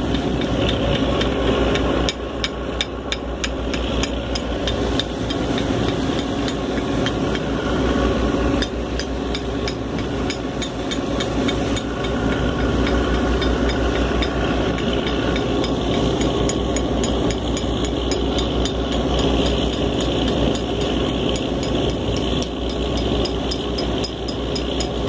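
Boat engine running steadily under way, with a fast, even knocking beat and rattling over a low hum.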